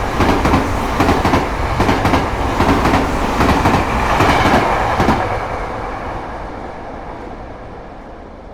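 A train running past, its wheels clicking over rail joints, then fading steadily as it moves away over the last few seconds.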